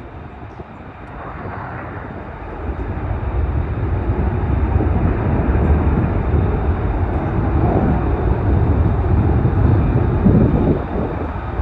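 Military fighter jet taking off, its jet engine noise swelling over the first few seconds and then holding as a loud, deep roar.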